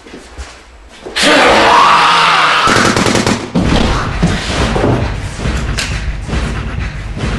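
Gunfire: a sudden loud burst about a second in, then a quick run of several shots close together.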